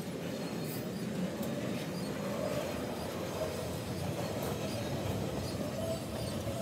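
Double-stack intermodal freight train's loaded well cars rolling past, a steady rumble of steel wheels on rail with a faint, wavering high tone running through it.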